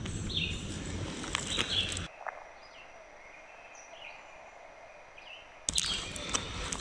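Birds chirping in short, repeated falling calls over steady outdoor noise, with a few handling clicks and rustles. The background noise drops away for a few seconds in the middle, leaving the chirps over a faint hiss.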